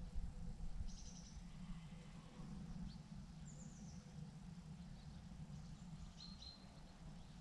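Faint bird chirps, a few short high calls a couple of seconds apart, over a low steady rumble of background noise.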